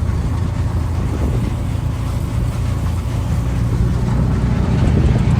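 Vehicle engine running steadily as it drives along, a low even rumble.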